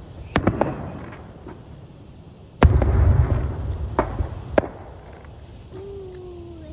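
Aerial fireworks shells bursting: a series of sharp booms and cracks, the loudest about two and a half seconds in, followed by a low rumble lasting about a second.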